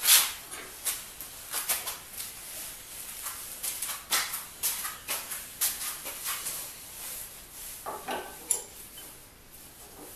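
Steel vise parts clinking and knocking against each other as they are handled and fitted: a sharp metallic knock right at the start, then irregular clinks and rattles that thin out near the end.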